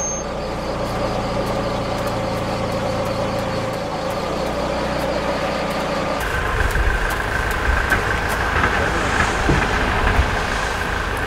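A white Ford Transit van's engine idling steadily while the van stands at the roadside. About six seconds in, the sound changes abruptly to a heavier, more uneven low engine sound with a faint steady high tone, as if heard from closer by.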